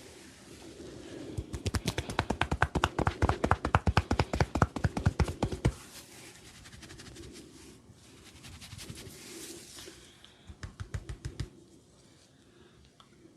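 A barber's hands rapidly tapping on a client's head during a head massage. About ten quick taps a second for some four seconds, then a shorter run of taps near the end.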